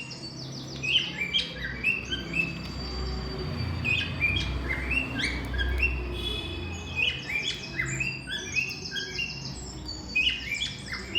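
Pet parrots (cockatiels or lovebirds) chirping: many short, rapid chirps overlapping one another, as from several birds at once, with a low rumble in the background in the middle.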